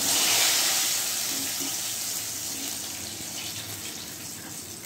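Pakoras frying in hot oil: a loud, even sizzle that starts suddenly and slowly dies down.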